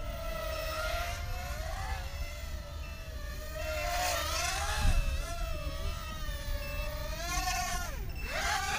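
Eachine Racer 130 mini racing quadcopter's 4000 kV brushless motors and propellers whining in flight, the pitch rising and falling with throttle. Short high beeps from the quad recur several times, which the pilot puts down to the battery running low.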